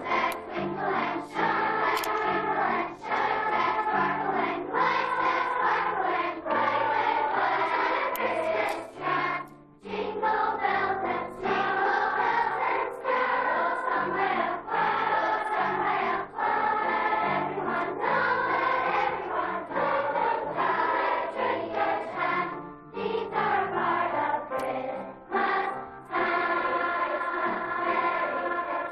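A children's choir singing a festive Christmas song in unison over a piano-style accompaniment, in phrases with short breaths between them.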